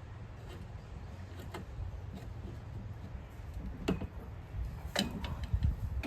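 Light clicks and taps of parts and hardware being handled and fitted together, with two sharper clicks about four and five seconds in, over a steady low rumble.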